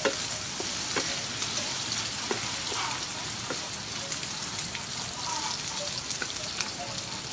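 Sliced sea snail frying in hot soybean oil with chopped garlic: a steady sizzle, with the wooden spatula knocking against the nonstick pan now and then as it stirs.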